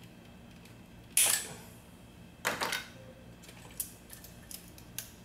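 Wire cutters snipping through injector harness wires at the original connector clips: one sharp snap about a second in, then a second snip of several quick clicks about halfway through, with a few light ticks of handling after.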